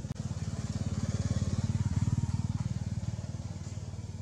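Small motorcycle engine passing, its rapid even firing growing louder to about halfway and then fading.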